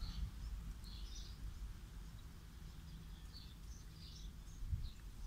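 Quiet outdoor ambience: faint, scattered bird chirps over a steady low rumble.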